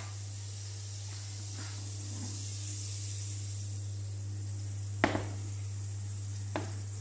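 Butter sizzling faintly in a frying pan over a steady low hum. A sharp metal clink about five seconds in and a lighter one near the end come from a ladle knocking against a saucepan.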